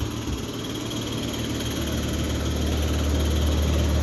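Carrier Sentry heat pump outdoor unit running on its condenser fan alone, a steady low hum and whir that grows gradually louder. The compressor has shut off, which the owner suspects comes from low refrigerant.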